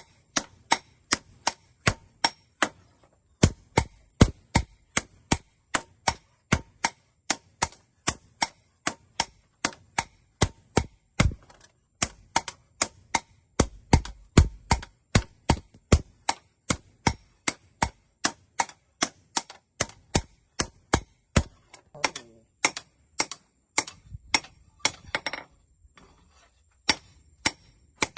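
Hammer blows on steel over an anvil, about two strikes a second, each with a short metallic ring; the steady rhythm pauses briefly a few times.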